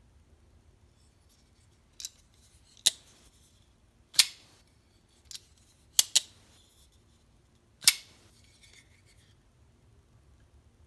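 Zero Tolerance 0470 flipper knife's blade flicked open and shut on its ball-bearing pivot: sharp metallic snaps as the blade swings open to its stop and the titanium frame lock engages, and as it is released and closed. There are about seven snaps spread over several seconds, two in quick succession about six seconds in.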